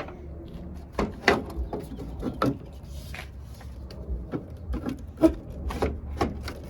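Irregular clicks, taps and rubbing of hands working plastic headlight clips and holders loose, with a few sharper knocks.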